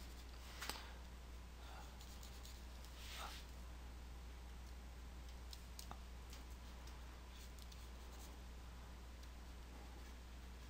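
Quiet room tone with a steady low hum, broken by a few faint clicks, one about a second in and more near the middle, and a soft scratch a few seconds in.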